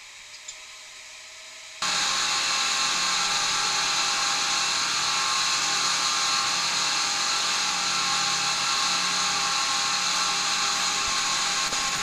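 Speedboat engine running at steady cruising speed, heard from inside the boat, a loud unchanging drone with hiss over it. It comes in suddenly about two seconds in.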